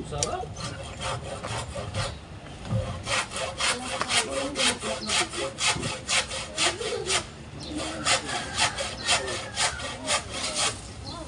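Hand saw cutting wood in quick back-and-forth strokes, about three a second, in two runs with a short pause around the middle.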